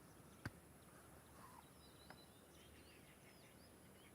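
Near silence with faint short bird chirps. A sharp click about half a second in is the loudest sound, and a smaller click follows about two seconds in.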